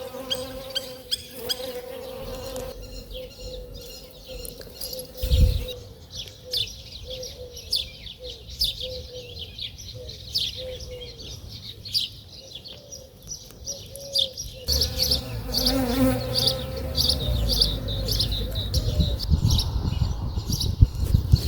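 A bee buzzing close by in a steady drone whose pitch wavers as it flies, over a chorus of many small birds chirping. There is a thump about five seconds in, and a low rumble joins in during the second half.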